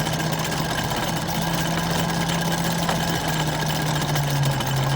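Sailboat's inboard engine running steadily at low revs in reverse, an even low hum, while the boat backs away from its anchor to pay out chain.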